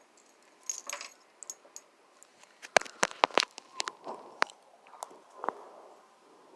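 Keys scraping and chipping at a piece of egg-shaped sidewalk chalk, with crunchy scrapes and a quick run of four sharp cracks about three seconds in.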